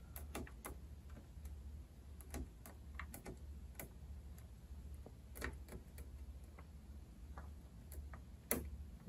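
Faint, irregular clicks and taps of multimeter test probes against the terminals of a circuit trainer board, with a louder click near the end, over a low steady hum.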